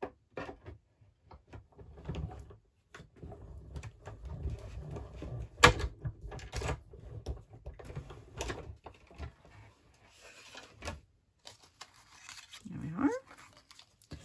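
Hand-cranked die-cutting machine (Stampin' Up! Cut & Emboss) rolling a die and cutting plates through its rollers: a low grinding rumble with clicks and one sharp clack of the plates. A short rising whine follows near the end.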